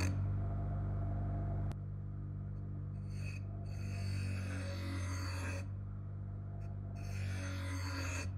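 Bench grinder motor running with a steady hum while a steel knife blade is pressed against the grinding wheel. Three rasping grinding passes come in the second half, the longest about two seconds.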